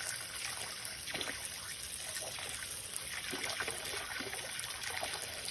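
Water running from a tap and trickling steadily, as at a sink during handwashing.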